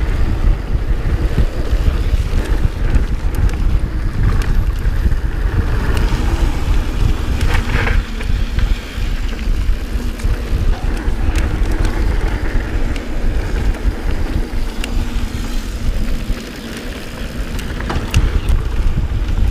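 Wind buffeting the microphone during a fast mountain-bike descent, over the rumble of the tyres rolling on a packed dirt trail. Scattered short clicks and rattles come from the bike over bumps, with a brief sharper rattle about eight seconds in.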